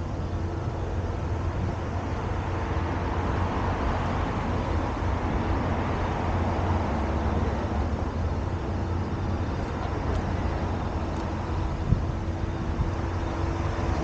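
Steady hum of distant road traffic, swelling for a few seconds in the middle as a vehicle passes, with one brief tap near the end.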